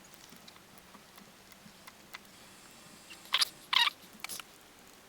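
Hands working small parts of a lamp's wiring and heat-shrink tubing: faint light clicks, then two short crunchy rasps about three and a half seconds in, followed by a few small clicks.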